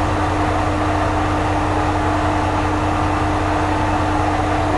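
Diesel railcar engine idling steadily: a low hum with one constant tone held throughout.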